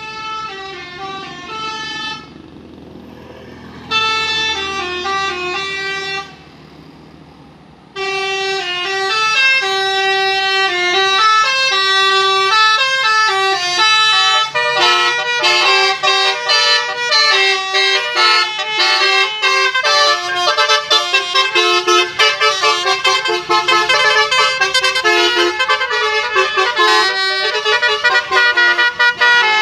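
Basuri musical bus horn (klakson telolet) playing a tune in stepping horn notes: two short phrases, then from about eight seconds in a continuous, faster melody.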